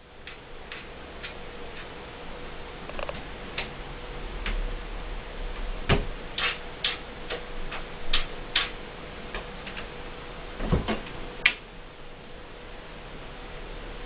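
Irregular light clicks and taps, with two heavier knocks, from a cat pawing at a fridge door, over a steady hum and hiss.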